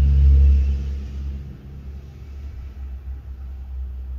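A steady low rumble, loud for about the first second and then falling to a lower level that holds.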